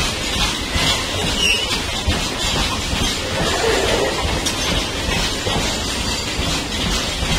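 Wagons of a loaded coal goods train rolling past on the rails: a steady clatter of steel wheels, with clickety-clack over rail joints and a brief wheel squeal about halfway through.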